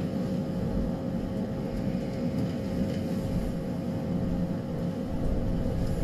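Diesel railcar running, heard from inside the passenger cabin: a steady low rumble of engine and wheels with a constant faint hum.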